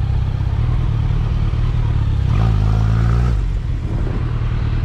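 Motorcycle engine running on the move under heavy wind rumble on a helmet-mounted microphone. A little past halfway a stronger engine note comes through for about a second, then drops back.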